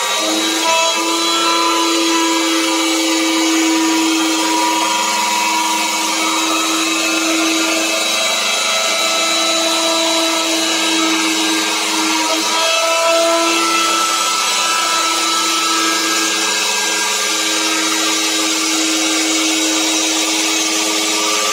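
Handheld electric router running steadily, its bit cutting a curved groove into a wooden board: a steady motor whine over the hiss of the cut.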